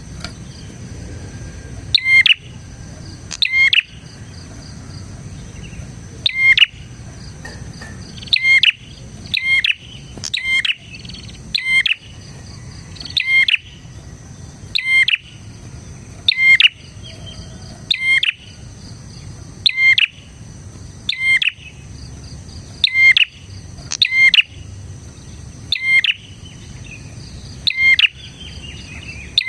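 A prenjak (prinia) calling over and over in sharp, short, loud chirps, roughly one every second or so, with a steady faint high buzz beneath.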